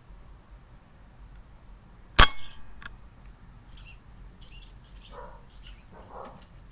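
Air rifle shot: one sharp crack with a short metallic ring, followed about half a second later by a second, smaller click.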